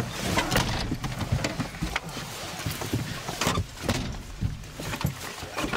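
Camera handling noise: clothing rustling against the microphone, with irregular knocks and bumps, as someone moves about in a car.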